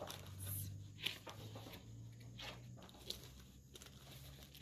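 Pages of a large picture book being turned by hand: a few short paper rustles and flaps over a faint steady low hum.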